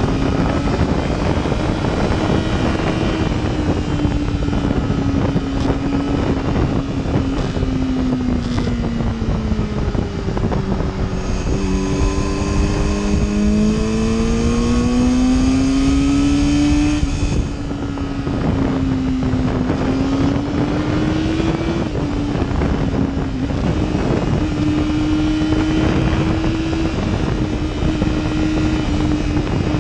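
Sport motorcycle engine running under way, its note rising and falling with the throttle through the bends, with heavy wind noise on the microphone. About halfway through it pulls harder with a climbing note, then drops sharply as the throttle closes.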